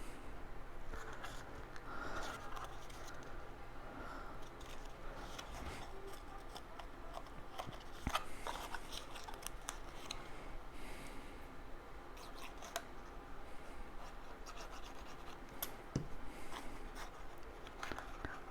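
Cardstock being handled as glued tabs of a paper box are pressed in place: faint rubbing and scratching of paper, with scattered light clicks.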